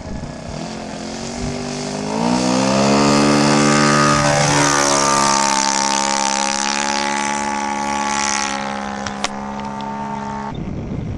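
Small propeller aircraft engine, a Cessna 152, rising in pitch for about two seconds as it powers up, then running steady and loud. There is a single sharp click near the end, and the sound cuts off abruptly just before the end.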